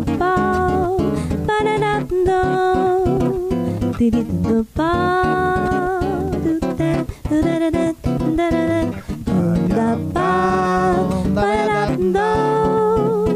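Acoustic guitar played as accompaniment, with a voice singing long held notes; one note swoops up into place a little under five seconds in.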